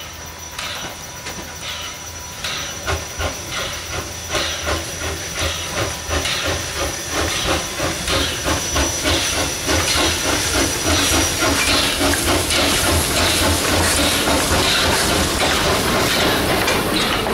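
Small steam locomotive working a train as it approaches and passes close by: a regular chuff of exhaust beats that grows louder and faster as it nears, over steady hissing from steam let out low at the cylinders. Near the end the carriages roll past.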